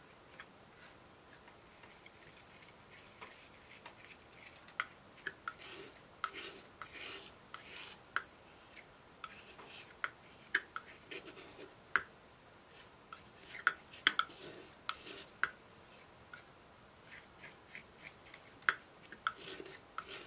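Metal palette knife scraping and tapping on a wooden palette as oil paint is mixed: scattered sharp clicks with a few short scrapes, irregularly spaced.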